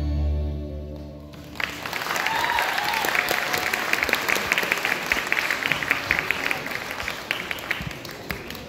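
A children's choir song ends on a held final chord over its accompaniment; about a second and a half in, the audience starts clapping, and the applause goes on steadily before thinning near the end.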